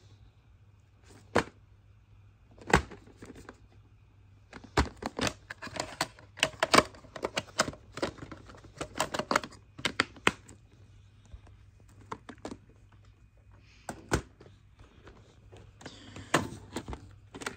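Hard plastic VHS clamshell cases clicking and clacking as they are handled, opened and shut, in scattered sharp clicks that come thickest in the middle and again near the end.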